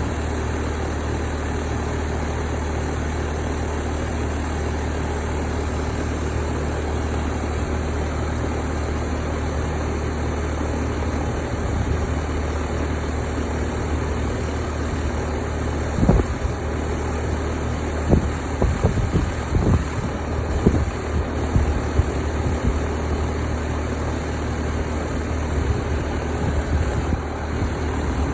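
Air conditioner condenser unit running, its compressor and fan making a steady low hum, with a few light knocks about two-thirds of the way through. The unit is one that short-cycles its compressor and fan.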